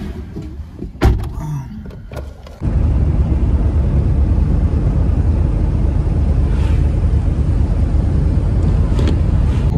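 A single thump about a second in. A few seconds in, the steady low rumble of a moving car's road and wind noise starts abruptly and runs on loud and even.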